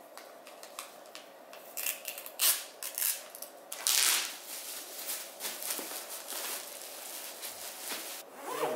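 Scissors cutting open plastic packaging, with the plastic crinkling and rustling in a series of short, irregular bursts. The loudest rustles come about two and a half and four seconds in.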